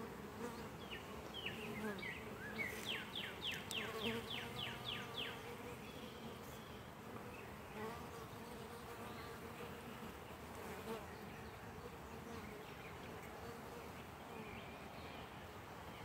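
Honeybees buzzing steadily on and around an open hive frame, a low hum. A quick run of short high chirps sounds over it between about one and five seconds in.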